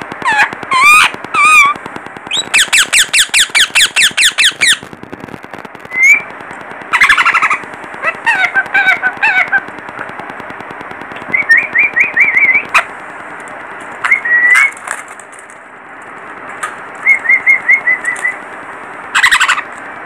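Lutino Indian ringneck parakeets calling in sharp, gliding squawks. A few seconds in comes a fast rattling run of repeated calls, about eight a second, and later there are short trilled chirps.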